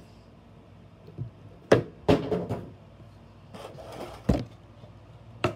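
Cardboard Funko Pop box being handled: a few sharp knocks with scraping between them, the loudest just under two seconds in and another a little past four seconds.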